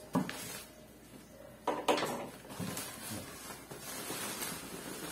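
Handling noises: a few short knocks and scrapes, the loudest knock about two seconds in, with light rustling between.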